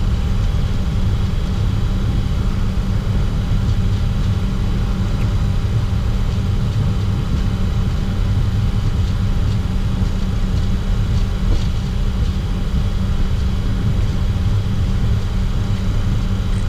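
Steady cockpit noise of a Bombardier Challenger 604 on the ground with its General Electric CF34 turbofans running at idle: an even low rumble with a faint steady high whine.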